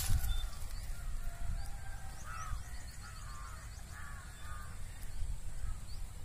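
Birds calling: a run of short, repeated calls through the middle, with faint higher chirps, over a steady low rumble.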